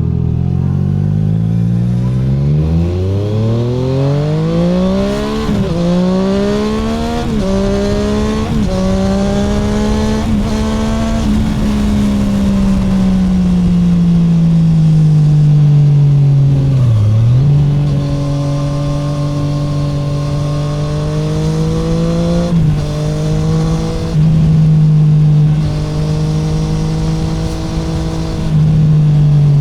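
2017 Triumph Street Triple 765R inline three-cylinder engine through an open SC Project SC1-R titanium exhaust with no dB killer, accelerating hard through several quick upshifts, each shift a short break in the rising pitch. It then eases off with the pitch sinking, dips low once, and settles into a steadier run with brief throttle blips.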